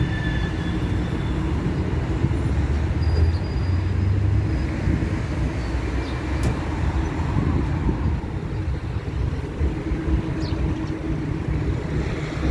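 Steady road traffic: car engines and tyres running past, with a low engine hum standing out over the first few seconds.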